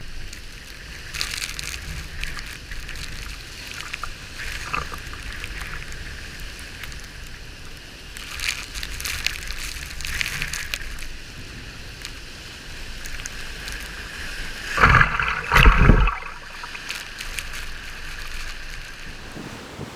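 Storm surf on Lake Superior washing and sloshing, with wind rumbling on the microphone. Hissing washes of water come and go, and a loud surge about fifteen seconds in is the loudest moment.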